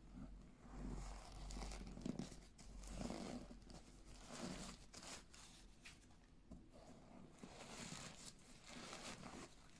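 Crumpled packing paper crinkling and rustling as it is pulled out of the toes of new sneakers, in several short bursts with brief pauses between them.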